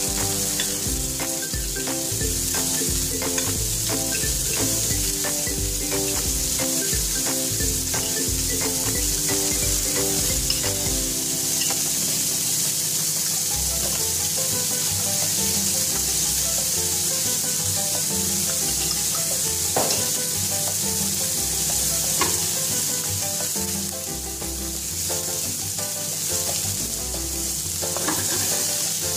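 Cod fillet, tenderstem broccoli and capers frying in a nonstick pan with a steady sizzle, and two light knocks about two-thirds of the way through.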